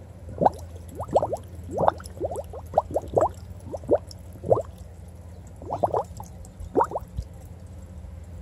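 Air from a pond aerator's bubbler surfacing through an opening in thawing ice: a run of short bubbling blips, each rising in pitch, in clusters that stop about a second before the end, over a steady low hum.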